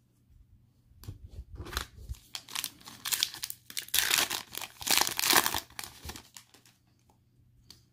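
Plastic wrapper of a Panini Mosaic football card pack being torn open and crinkled by hand. The crinkling starts about a second in, is loudest in the middle, and dies away about six seconds in.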